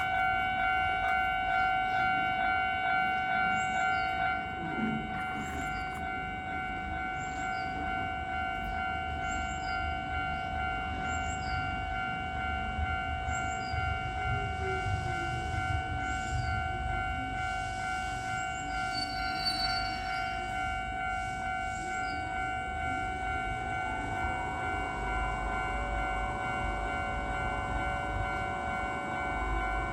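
Japanese level-crossing warning bell ringing continuously, a steady electronic 'kan-kan' tone. Keisei Chiba Line commuter trains pass through the crossing with a rumble of wheels on rail, strongest in the middle and again near the end.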